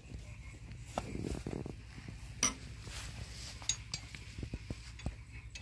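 Scattered light clinks and knocks, the sharpest about two and a half seconds in, over a steady low rumble.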